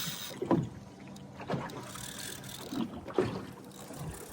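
Water slapping and lapping against a small fishing boat's hull, in a few irregular slaps about a second apart.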